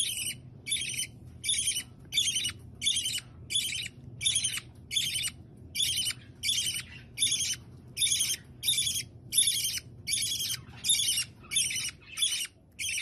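Small conure parrot making short, raspy, high-pitched sounds in a steady rhythm, about two a second.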